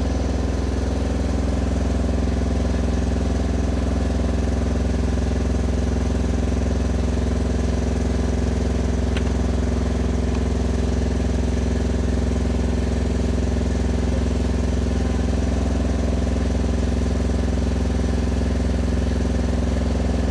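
An engine idling steadily, its note unchanging.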